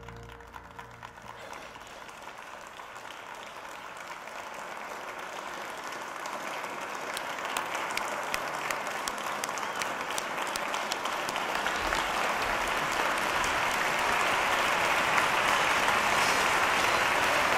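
Audience applause, starting as scattered clapping and swelling steadily into dense, loud clapping.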